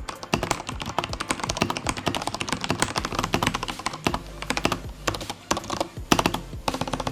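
Fast typing on a Corsair K68 RGB mechanical keyboard with linear Cherry MX Red switches: no switch click, only the keycaps bottoming out under heavy-handed presses, with a few harder strikes near the end.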